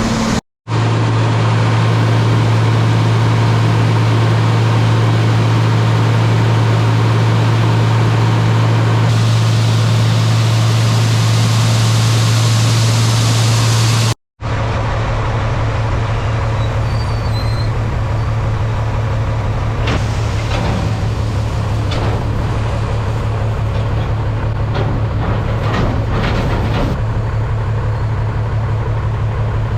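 Heavy farm machinery running with a steady, loud, low engine drone that cuts out abruptly twice.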